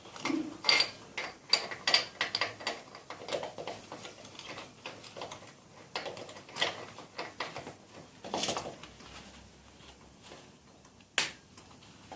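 Metal engine parts and hand tools clinking and knocking while a motorcycle engine is taken apart by hand: irregular clicks and knocks, some with a brief metallic ring, then a louder scrape, and a sharp click near the end.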